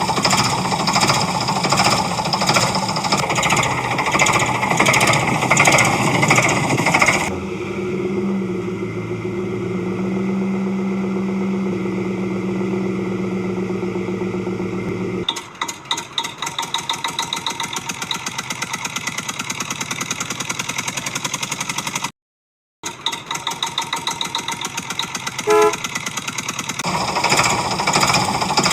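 Vehicle engine sounds in abrupt, edited segments. First a rattling, jackhammer-like engine noise, then a steady engine drone for several seconds, then a fast, even chugging idle. A brief dropout cuts in about two-thirds of the way through, and the rattling returns near the end.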